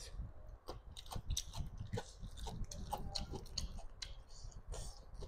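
Wet chewing and lip smacks from a mouthful of boiled egg yolk and curried rice eaten by hand, picked up close on a lapel microphone, with many short sticky mouth clicks.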